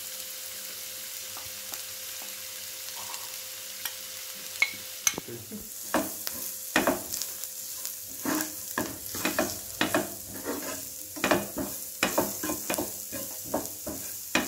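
Spiced onion filling frying in oil in a pan with a steady sizzle; from about five seconds in, a utensil stirring it scrapes and knocks against the pan in frequent, irregular strokes as the onions and masala are sautéed.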